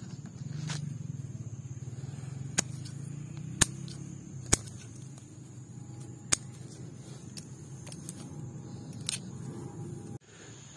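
Hand pruning shears snipping suckers at the base of a pomegranate tree: about five sharp, separate clicks of the blades closing, spread over several seconds, over a low steady rumble.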